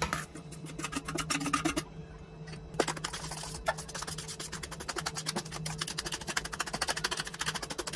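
A utensil scraping in a stainless steel bowl, stirring chopped broccoli into a thick vegetable paste. A few irregular scrapes come first, then quick, even stirring strokes from about three seconds in.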